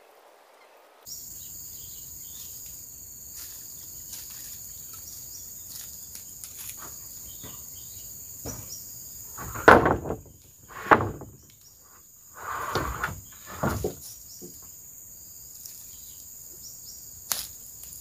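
Insects keeping up a steady, high-pitched buzzing chorus that starts abruptly about a second in. Midway, four or five loud, short rustling knocks cut across it.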